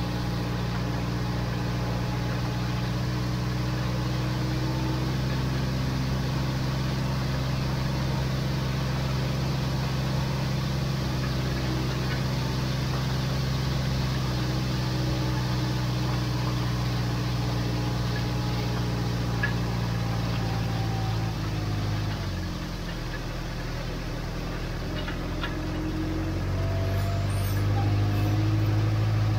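Tractor engine running steadily while pulling a wheel hay rake through cut hay. A little past two-thirds of the way through the engine note drops and softens, then it climbs back and is loudest near the end.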